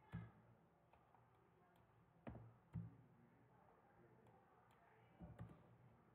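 Near silence: room tone with a few soft clicks at the computer, one about two seconds in, another half a second later, and a couple more around five seconds in.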